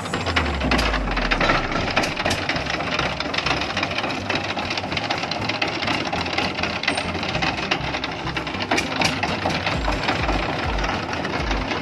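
Single-cylinder diesel shallow-machine (irrigation pump) engine powering a homemade truck, running with a rapid, steady knocking chug and rattle.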